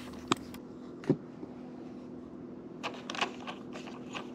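Scattered small clicks and taps of parts being handled, with a short cluster of quick clicks about three seconds in, over a faint steady hum.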